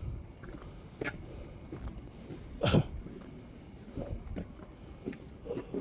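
A single short cough about two and a half seconds in, with a few faint knocks around it.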